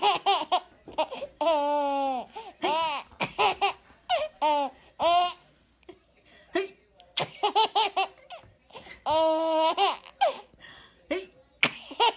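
A baby laughing in repeated high-pitched bursts, with two longer held laughs, one near the start and one about three-quarters of the way through.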